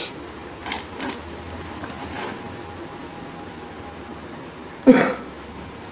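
Handling noises on a repair bench: a few light clicks and rustles, then a sharper knock about five seconds in, over a faint steady hum.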